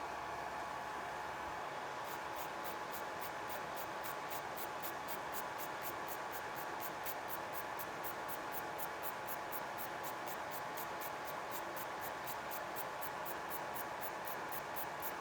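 Gel nail removal: a small electric motor hums steadily at a fixed pitch, and about two seconds in a fast, even scratching begins, about four strokes a second, as the gel is worked off the nail.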